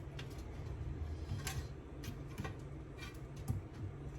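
Chicken frying in a pan as it is flipped: faint, scattered ticks and crackles, about half a dozen, over a steady low hum.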